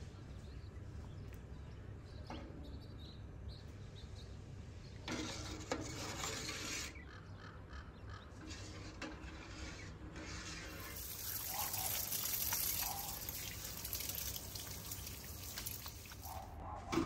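Water running from a garden hose and splashing over hands, a steady hiss in the second half. Before it, a few light clinks of a metal spoon in a steel pot of curds and whey.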